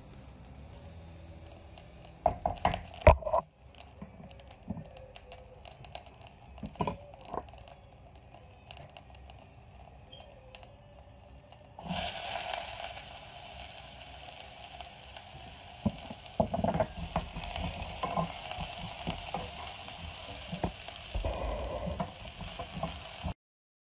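Chopped onions poured into hot oil in a nonstick pan start a steady sizzle about halfway through. From there a wooden spatula scrapes and knocks against the pan as they are stirred. Before that, a spoon clatters against the pan a few times as seeds are tipped into the oil, followed by sparse light crackles; the sizzle stops abruptly near the end.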